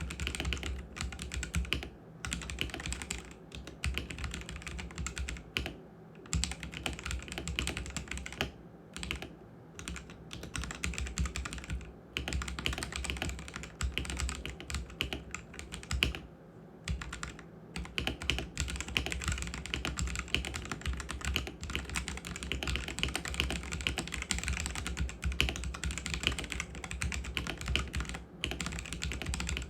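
Typing on a Koorui MK082 75% mechanical keyboard with red linear switches: a fast, continuous run of keystrokes, broken by a few short pauses.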